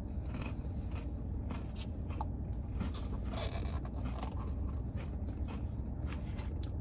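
Small handling sounds, light scrapes and rustles of a plastic spoon and a plastic sundae cup and of a sweatshirt sleeve, over a steady low hum in a parked car's cabin. The longest rustle comes about three seconds in.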